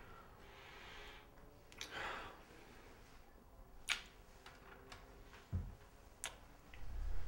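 A couple kissing: three quiet lip smacks about two seconds apart, with a breath around the first and a soft low bump of movement just before the last.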